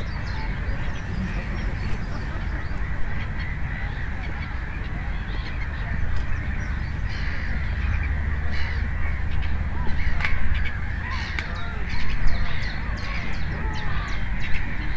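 Birds calling over and over, with a steady low rumble underneath.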